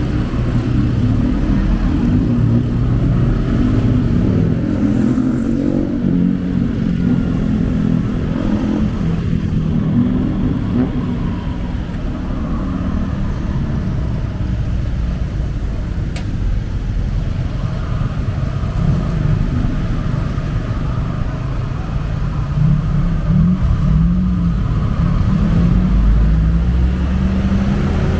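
Motorbike engine and surrounding city traffic heard from the pillion of a riding motorcycle taxi: a steady low rumble whose engine pitch rises and falls as the bike pulls away and slows, easing off somewhat in the middle.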